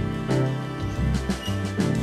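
Background music, with a bass note changing about twice a second.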